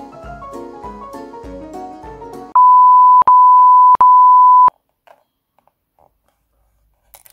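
Light plucked-string background music stops about two and a half seconds in. It is followed by a loud, steady electronic beep at one high pitch, broken twice into three back-to-back beeps lasting about two seconds. Then it goes almost silent.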